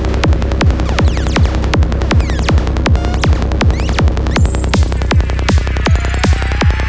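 Psytrance track at 160 BPM: a steady four-on-the-floor kick drum over a continuous bass. A rising synth sweep and high stepping notes come in about four and a half seconds in.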